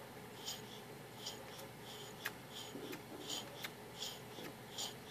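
SnoTek snow blower's fuel primer being pumped by hand, a soft puff about every 0.7 seconds with a couple of sharp clicks in between. Pumping the primer makes fuel leak.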